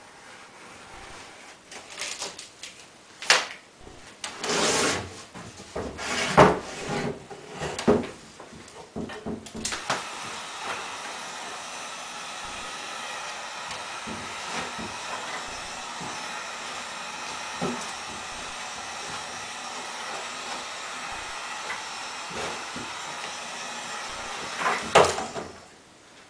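Knocks and thumps of a wooden cornhole board being handled and flipped over on a workbench. About ten seconds in, an electric heat gun starts up and runs steadily, warming the vinyl wrap around the board's hole, until it is switched off near the end.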